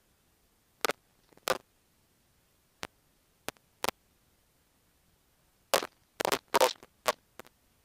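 Short, abrupt bursts of noise on the cockpit headset intercom, each cut off sharply, with near silence between them and no engine noise heard. About ten bursts: a pair about a second in, a few single ones in the middle, and a quick cluster around six to seven seconds in.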